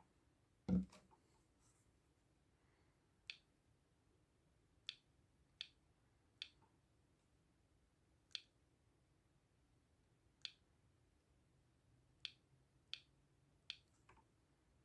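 Faint clicks of the keys on an Ericsson A2218z mobile phone being pressed one at a time, about ten presses at uneven intervals, with one louder thump about a second in.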